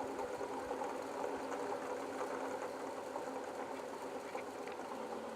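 Small wind turbines spinning in the wind, giving a steady mechanical hum with several held tones.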